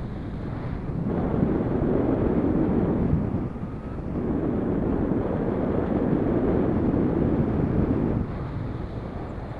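Airflow buffeting an action camera's microphone in paraglider flight: a steady rush of wind that swells louder twice, from about one to three seconds in and again from about four to eight seconds in.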